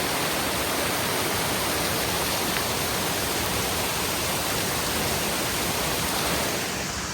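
Steady rush of a waterfall, a constant full hiss of falling water.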